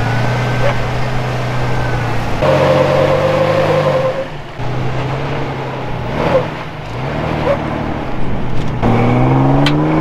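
Jeep Cherokee XJ engine running as the truck creeps over rock, its pitch rising and falling with the throttle, with short dips about four and seven seconds in. Near the end it revs up harder under load.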